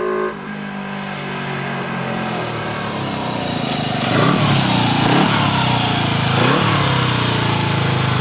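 Motorcycle engine drawing closer and growing louder, then revved up close, its pitch rising and falling about three times in the second half.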